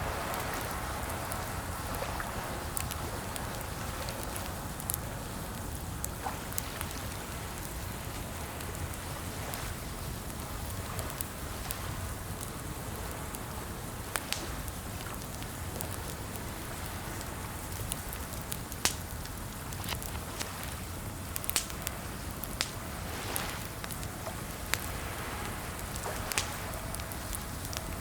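Steady rain-like hiss with a low rumble, with sparse, irregular sharp clicks of keyboard keys scattered through it.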